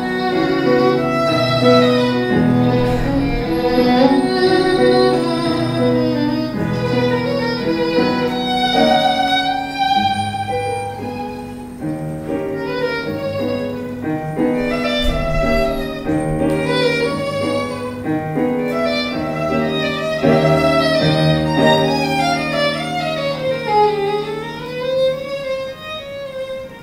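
Violin duet with a Casio Privia digital piano: the violin plays a sustained melody with vibrato over held piano chords. Near the end the violin line swoops down in pitch and back up.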